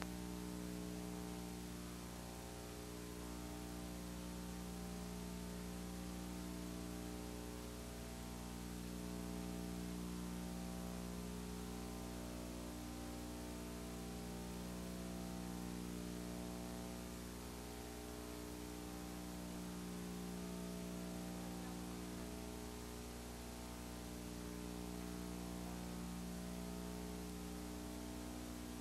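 Steady electrical hum with a stack of overtones over a constant hiss, slowly swelling and fading every several seconds; no other sound stands out.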